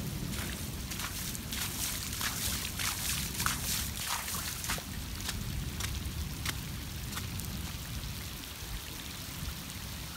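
Rain falling, with drops pattering sharply close to the microphone, most densely in the first half, over a low steady rumble.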